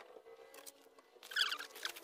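Light knocks and a short high squeak about a second and a half in, from someone getting up and stepping on wooden deck stairs.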